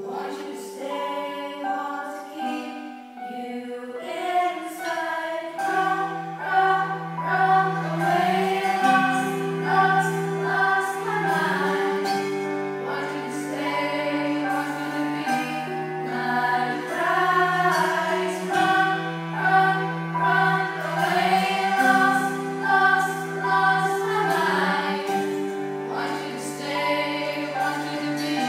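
A group of voices singing a musical-theatre song with a small live band of keyboard and cello, long notes held low beneath the melody. Recorded with poor sound quality.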